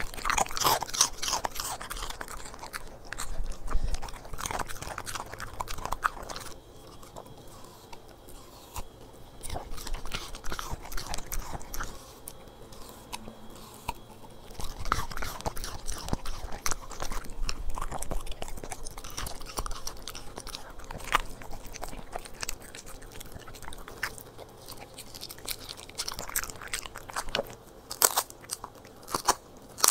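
A corgi chewing and crunching its food, with irregular bites and crunches and a few brief pauses. Near the end it gnaws a dried beef tail bone.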